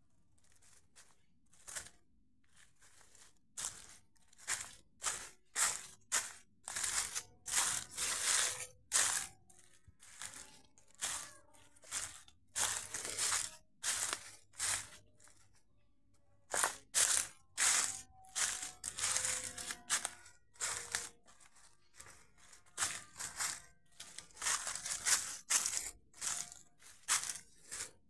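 Footsteps crunching through dry fallen leaves, about two steps a second at a walking pace, with a few short pauses.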